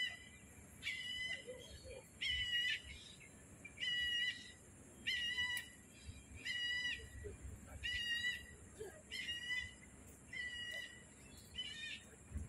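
A bird calling over and over, about ten short calls at a steady pace of roughly one every second and a bit. Each call is a level note with ringing overtones, over a steady high hiss in the background.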